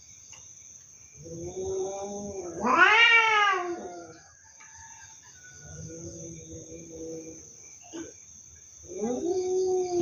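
Domestic cats caterwauling in a standoff: low, drawn-out growling moans that swell into a loud rising-and-falling yowl about three seconds in, a lower held moan around the middle, and another growl building near the end.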